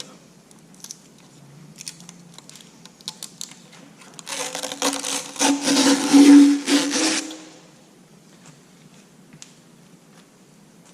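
Adhesive tape being peeled off a new LED headlight. Small handling clicks come first, then about four seconds in a loud ripping screech of the tape pulling away that lasts about three and a half seconds.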